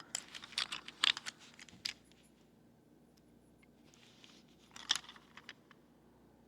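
Small clicks, taps and rustles of a wooden railway toy crane being picked up and turned over in the hands, busiest in the first two seconds, with another short cluster of clicks near five seconds.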